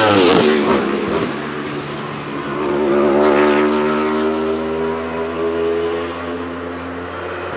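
Wolf GB08 Thunder's Aprilia RSV4 1,000cc V4 engine at high revs as the race car passes close by, its note dropping sharply in pitch as it goes past. About three seconds in the engine revs up again, more distant, then holds a steady note and fades.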